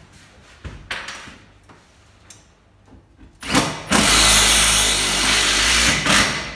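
A few light knocks, then a handheld power tool runs steadily for about two and a half seconds and stops.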